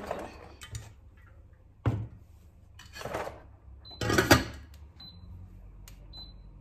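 Clatters of a glass pot lid being set onto a stainless steel pot, loudest about four seconds in, followed by short high beeps from the AEG hob's touch controls as the heat is set to 6.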